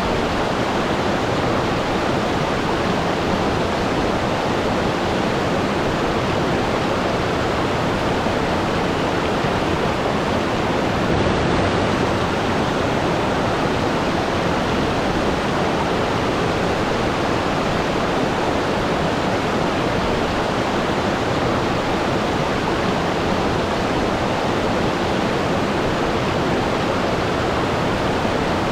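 Waterfall: water pouring and splashing without a break, a steady, full rushing sound.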